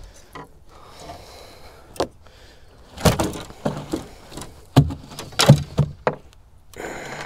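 Irregular knocks and thumps on a boat deck as a freshly landed threadfin salmon is handled in a landing net, with a short rustle near the end. The loudest knocks come around the middle and carry a brief low ring, like a hollow hull being struck.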